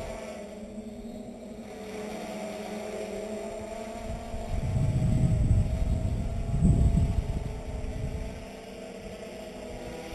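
Hexacopter's six motors and propellers humming in flight, several pitches wavering slightly as it holds its position. Between about 4 and 8 seconds in, a loud low rumble of wind on the microphone rises over the hum and dies away.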